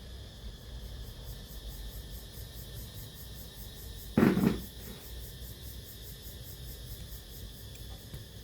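A single short, loud clunk about four seconds in, over a steady low hum and faint, regular high-pitched ticking.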